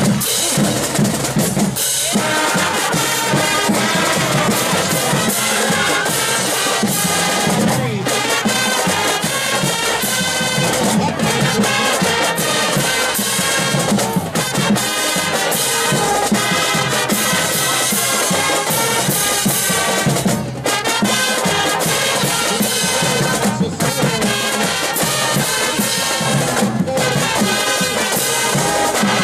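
High school marching band playing its fight song: massed brass (trumpets, trombones, sousaphones) over a drumline of snare drums, tenor drums and crash cymbals.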